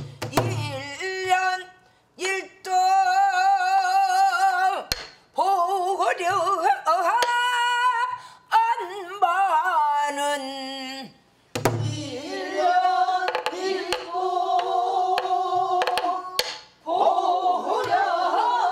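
A woman singing pansori in long, drawn-out held notes with a wide, wavering vibrato, pausing for breath a few times. She accompanies herself on a buk barrel drum: sharp clicks of the stick on the drum's wooden shell and a few low thumps on the drumhead fall between her phrases.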